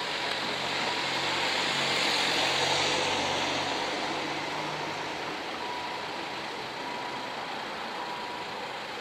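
Road traffic crossing the level crossing: a car and then a truck with trailer drive past. The tyre noise swells to a peak about three seconds in and fades, with the truck's engine running low underneath. A steady high tone from the crossing's warning bells sounds through it, clearer in the second half.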